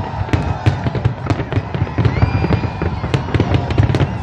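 Fireworks going off in quick succession: many sharp cracks and pops each second over a continuous low rumble of bursts.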